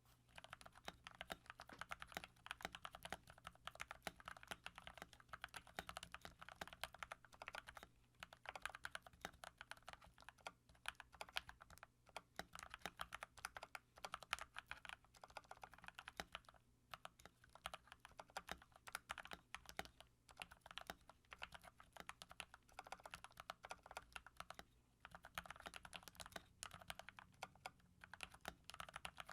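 Typing on a mechanical keyboard with Gateron Yellow linear switches: a rapid, continuous run of key clicks and key bottom-outs, broken by short pauses every few seconds.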